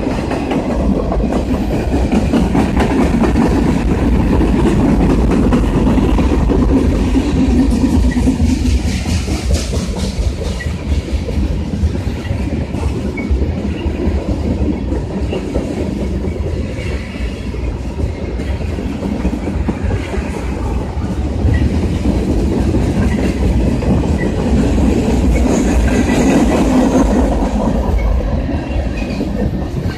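Freight cars of a mixed freight train rolling past at close range: a steady, loud noise of steel wheels on the rails with clicking over the rail joints, swelling twice as heavier cars go by.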